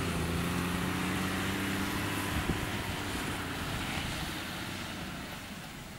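Sugarcane harvester at work beside its haulout tractor: a steady diesel engine drone with a low hum under a rushing noise from the chopping and the extractor fan, growing gradually quieter over the last couple of seconds.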